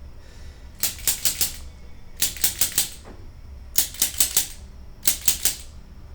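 Chiropractic activator adjusting instrument firing in quick runs of three or four sharp clicks, four runs about a second and a half apart, as it delivers impulses to the lumbar spine.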